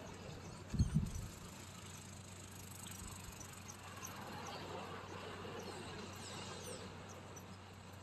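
Small waves lapping and trickling at the seashore in a steady low wash, with two low thumps about a second in.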